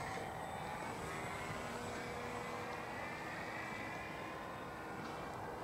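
Model aircraft's motor droning as it flies high overhead, its pitch slowly rising.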